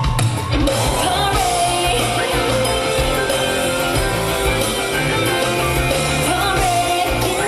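Live pop-rock band playing with drums, bass and electric guitar, and a woman singing the melody.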